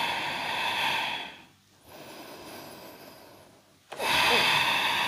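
A person breathing audibly close to the microphone: one long breath over the first second and a half, a quieter pause, then another long breath starting about four seconds in.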